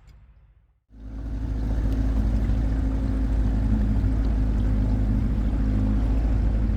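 Boat motor running steadily at a constant speed, with a strong low hum, starting suddenly about a second in.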